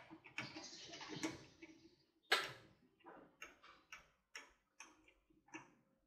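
A series of light clicks, about two a second in the second half, with a rustling hiss in the first two seconds and one louder knock a little past two seconds in, as parts of an opened-up washing machine are handled.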